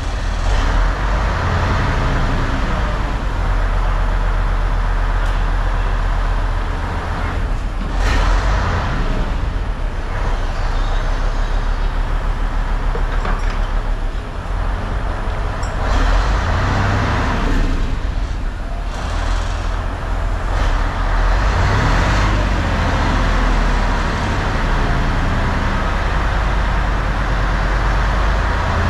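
Heavy diesel engine running steadily, a deep continuous rumble with louder stretches every few seconds.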